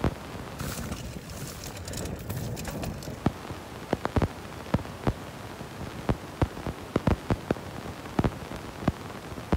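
Mountain bike rattling over a bumpy dirt trail: irregular sharp knocks and clatter from the frame and parts over a steady rush of tyre and wind noise, the knocks coming more often from about three seconds in.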